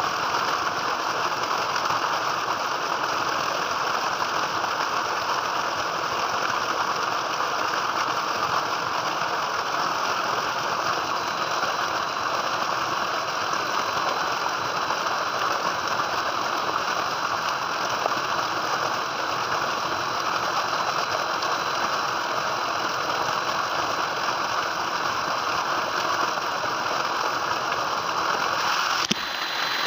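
Water gushing steadily from a tubewell's outlet pipe into a concrete tank, a constant splashing rush.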